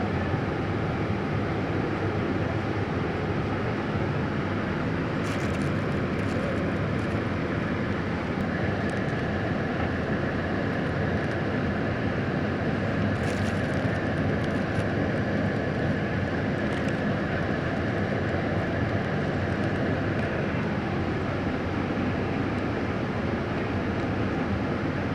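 Steady mechanical rumble like engines running, with a faint high whine through the middle and a few light clicks.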